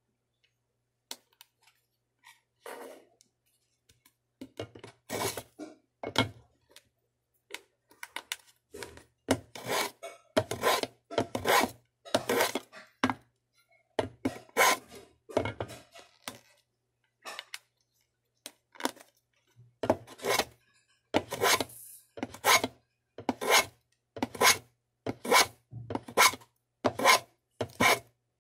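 Rhythmic strokes of a hand tool worked over small wooden pieces, each a short rasping swish. The strokes are scattered at first, then settle to about one a second, with a short pause midway.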